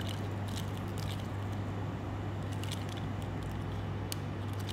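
Faint clicks and handling sounds of a Seiko 5 Sports automatic watch being shaken in the hands to start its 4R36 movement, over a steady low electrical hum.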